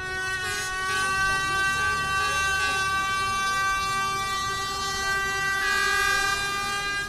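A boat's horn sounding one long, steady blast as a salute from the water.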